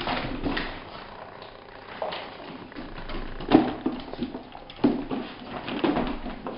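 Jack Russell terrier growling in play, in uneven bursts, loudest about three and a half seconds in and again near five seconds.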